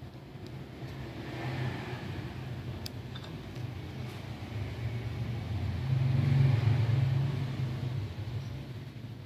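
A low, steady engine-like rumble that builds to its loudest about six seconds in and then eases off, with a faint click about three seconds in.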